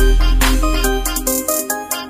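Electronic background music with a heavy bass, a melody of short notes and a drum beat.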